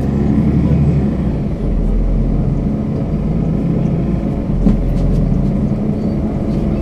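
Mercedes-Benz Citaro C2 city bus engine running at a steady pitch, with a single short click a little past halfway.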